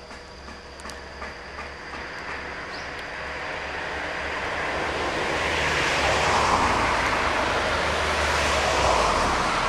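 Meitetsu Mo510 and Mo750 electric railcars running coupled as they approach on the track, the rumble of wheels on rail growing steadily from about four seconds in and loudest over the last few seconds.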